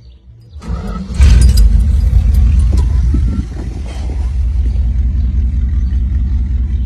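V8 engine cranked over briefly and catching about a second in with a loud rev, then settling into a steady, lumpy idle.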